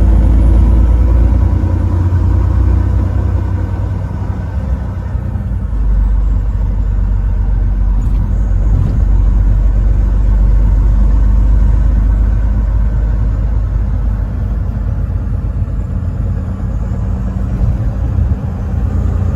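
Truck driving at highway speed: a steady low rumble of engine and road noise.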